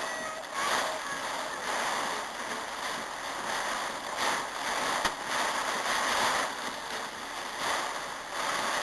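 Heavy rain pouring in a storm, its hiss swelling and fading in gusts every second or two, with a single sharp click about five seconds in.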